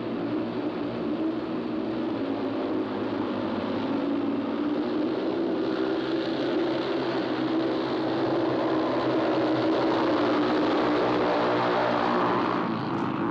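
Several speedway motorcycle engines running together as the riders race round the track, a steady wavering engine tone that grows louder toward the end as they come past.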